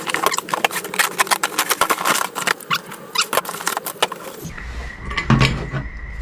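Wrapping crackling and rustling as a parcel is unwrapped by hand: a dense run of sharp crackles. About four and a half seconds in it cuts off abruptly, leaving a low hum and a faint steady high tone, with a single knock about a second later.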